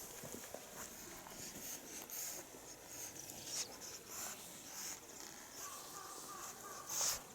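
Kittens scampering and pawing at a toy: scattered light taps and scratchy rustles, with the loudest scrabble near the end.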